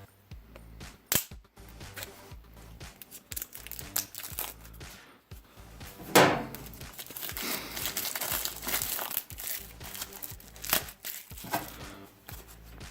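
Plastic wrapping being torn and peeled off a hard memory card case, crinkling, with a few sharp snaps, the loudest about six seconds in, followed by several seconds of steady crinkling.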